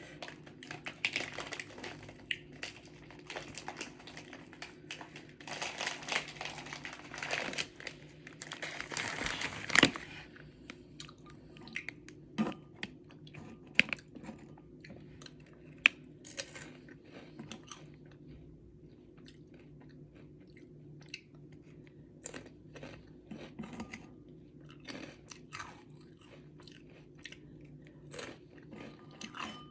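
A person chewing and biting food close to the microphone, with wet mouth clicks. The sounds are dense for about the first ten seconds, then thin to scattered clicks of chewing over a faint steady hum.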